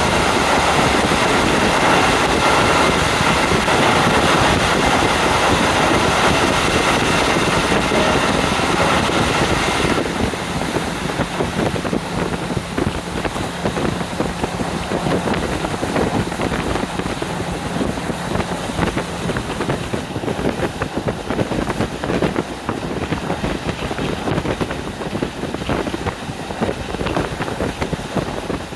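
Wind rushing in through the open window of a moving KiHa 40 diesel railcar, mixed with the running of the train on the rails. About ten seconds in the sound drops and turns less hissy, leaving more uneven clattering from the running gear.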